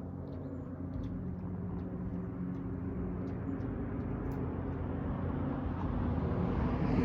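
Dodge Charger Daytona V8 through a Flowmaster Outlaw exhaust at a low, steady burble on a slow drive, growing gradually louder.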